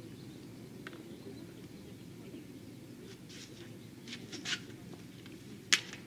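Open-air background hum with a few faint, short bird chirps a little past halfway and a single sharp click near the end.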